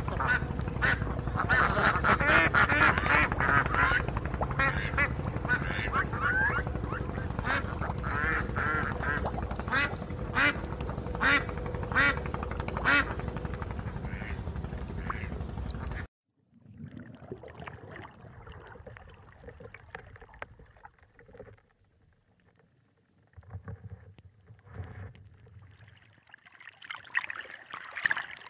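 Greylag geese and goslings calling, many short wavering calls over a steady low background noise. About sixteen seconds in this cuts off abruptly, leaving faint, patchy water sounds.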